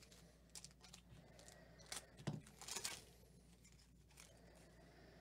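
Foil wrapper of a baseball card pack being torn open, several short tearing and crinkling sounds, the loudest about two to three seconds in, as the cards are pulled out.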